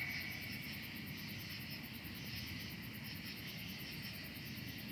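Faint, fast and even chirring of night insects, crickets by the sound of it, over a low steady hiss.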